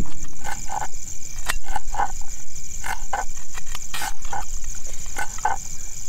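A pack of golden jackals calling loudly in chorus: many short, repeated yelping wails overlapping one another, over a steady high trill of crickets.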